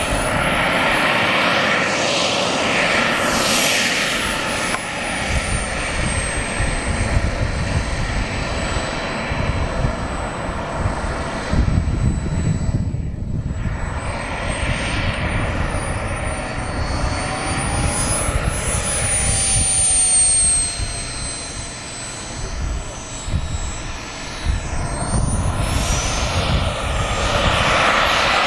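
Small turbine engine of a radio-controlled model jet whining while the plane taxis on the runway, the high whine wandering up and down in pitch and climbing higher near the end.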